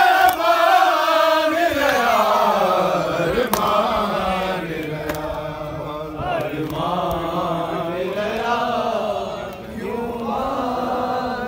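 A group of men chanting a noha, a Shia lament, together in long, wavering sung phrases. There is a brief loud knock at the very start.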